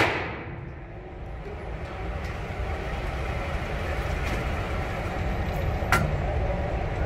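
Motorized target carrier running along its overhead track, a steady low rumble as it brings the paper target back to the firing line, heard over the fading echo of a shot in the indoor range. A single sharp bang about six seconds in.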